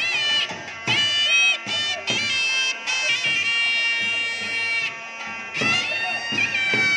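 Temple procession music: a loud reed pipe plays a melody of long held notes with pitch slides and ornaments, over a steady drone, with drum strokes now and then.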